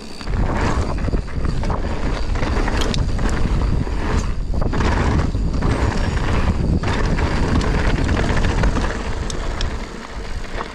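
Wind rumbling on the bike-mounted camera's microphone, mixed with mountain-bike tyres rolling over a gravel and rocky trail and a few sharp knocks from the bike over stones. The noise dies down near the end as the bike slows.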